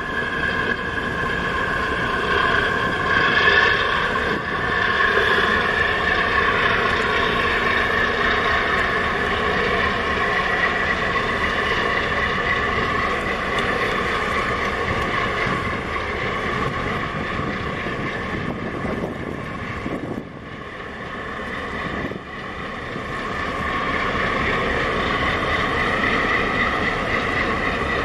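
Steady drone of a boat's engine with a humming tone, mixed with wind buffeting the microphone and rushing water; it dips briefly about two-thirds of the way through.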